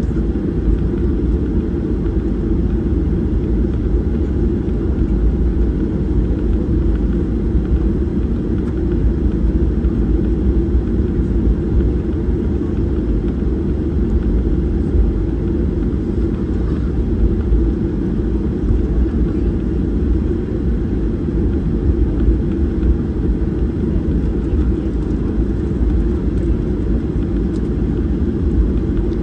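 Steady low rumble of cabin noise aboard a Boeing 737-800, with no change in level throughout.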